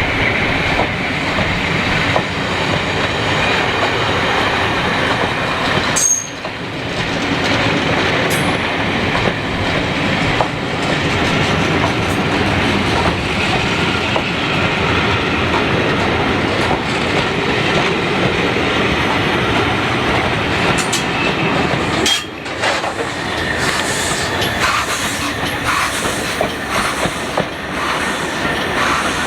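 A train running along the track with a steady, loud noise of wheels on rails, dipping briefly twice, about six and twenty-two seconds in.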